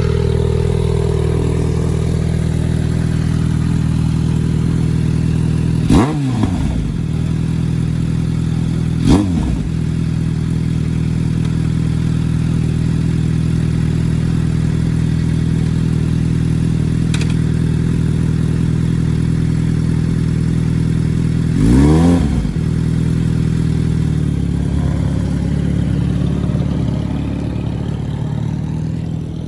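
Motorcycle engine idling steadily, blipped three times with quick throttle revs that rise and fall back to idle, about six seconds in, about nine seconds in and near the end. The engine sounds healthy.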